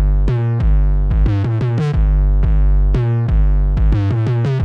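Background music: a synthesizer track with deep bass and a repeating pattern of plucked keyboard notes.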